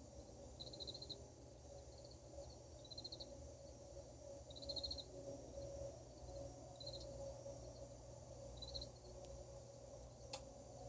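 Cricket chirping in short, rapidly pulsed bursts every second or two, over a faint steady hum. A single sharp click comes near the end.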